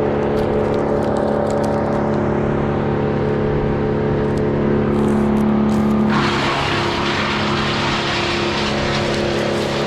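Two-stroke chainsaw running at high revs. About six seconds in, the pitch drops slightly and a loud rasping noise sets in, as the chain bites into the wood under load.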